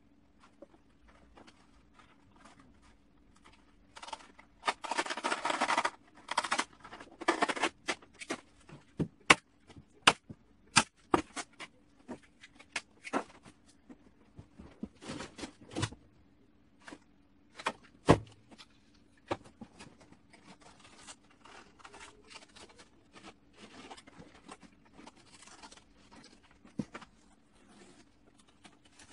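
Plastic tarp liner rustling and crinkling as it is handled and folded, dense for a few seconds, then a run of sharp clicks and knocks, one loud knock about 18 seconds in, followed by lighter scraping and rustling.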